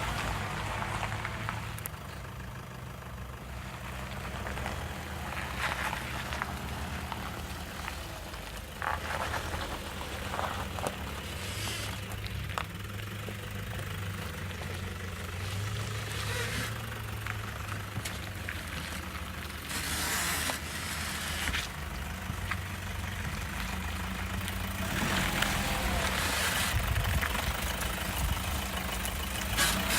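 2015 Toyota Hilux 2.5-litre diesel engine running at low revs, with short bursts of creaking and squeaking from its Old Man Emu lift suspension as the truck flexes over uneven ground, several times.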